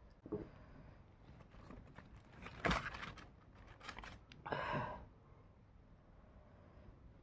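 Crunching of crispy KFC fried chicken coating, close to the microphone: a short crackle just after the start, then two loud crunchy bursts about two and a half and four and a half seconds in.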